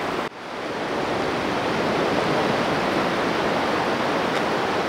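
Steady wash of surf breaking on a sandy beach. The sound drops out sharply about a third of a second in and swells back within the next second.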